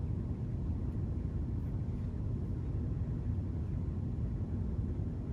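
Room tone: a steady low rumble with no distinct sounds.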